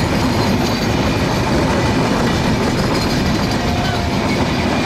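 A train running along the track: steady, unbroken wheel-on-rail noise.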